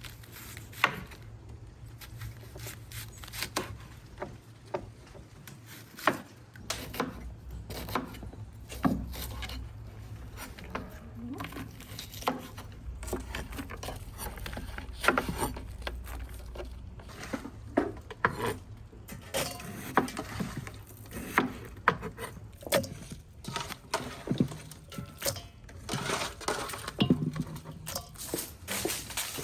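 Irregular clinks, knocks and handling noises, several a second, as utensils and dishes are worked with during food preparation.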